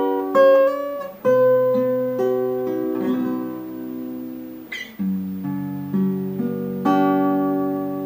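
Background music: acoustic guitar, picked and strummed, with a new chord struck every second or so and left to ring.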